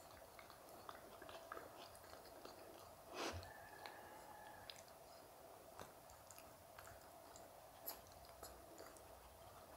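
Faint wet clicks and smacks of a golden retriever puppy mouthing and licking at an adult golden retriever's face, with a brief rustle about three seconds in. The scene is quiet overall.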